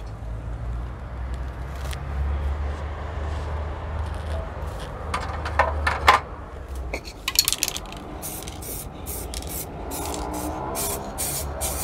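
Knocks and scraping as the plastic part is handled on a plastic drop sheet. From about eight seconds in comes a quick series of short hisses from an aerosol can of plastic primer, spraying a thin first coat.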